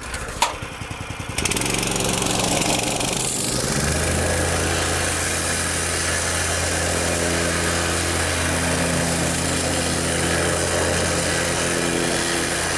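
A plate compactor's Honda 5.5 hp four-stroke engine is pull-started. After a couple of sharp clicks from the recoil starter it catches about a second and a half in and runs steadily. About four seconds in, a steady low hum joins it as the plate vibrates, compacting wet road rock.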